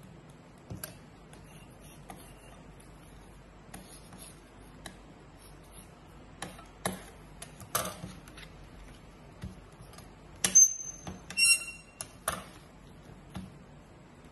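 Origami paper being folded and creased by hand on a hard tabletop: scattered crisp rustles, crinkles and light taps at irregular intervals. The loudest handling comes about two-thirds of the way through, with a brief squeak among the crackles.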